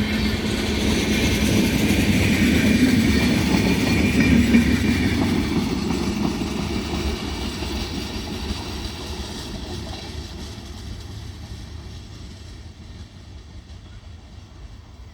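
Passenger train rolling past on the track, its rumble and wheel noise loudest in the first few seconds, then fading steadily as it moves away.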